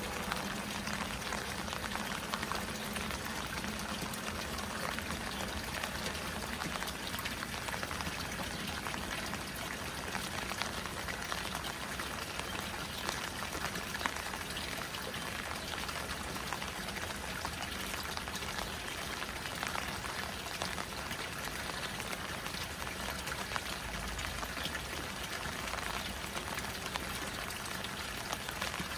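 Water pouring steadily from a pipe into a koi pond and splashing on its surface, mixed with rain falling on the water.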